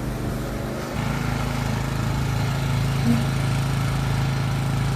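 Lawn mower engine running steadily, its hum growing louder about a second in.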